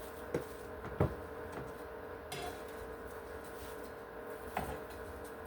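A few light knocks and clicks of a plate and utensils being handled, three in all, over a steady background hum.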